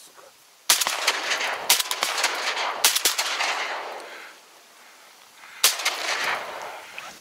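Shotguns firing four shots at ducks: three in quick succession about a second apart, then a fourth roughly three seconds later, each trailing off in a long echo.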